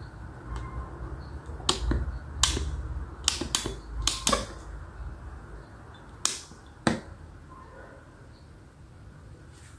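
Sharp plastic clicks, about nine over five seconds, from a KDK electronic ceiling-fan speed controller's dial being turned through its steps and a wall switch being pressed, over a low background hum.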